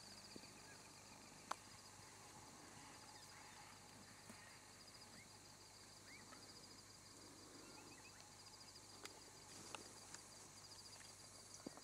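Quiet outdoor ambience: a fast, high-pitched trill repeats almost throughout, with scattered faint chirps and a few sharp clicks, the loudest about a second and a half in.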